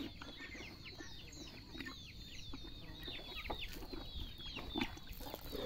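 Chickens clucking and chirping in the background: many short, high, falling calls.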